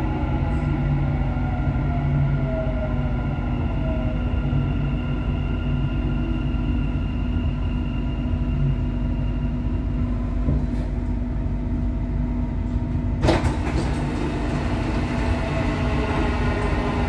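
Dubai Metro Red Line train running along the track: a steady rumble with an electric motor whine whose pitch glides in the first few seconds. About thirteen seconds in there is a sudden loud noise, followed by a denser rushing sound.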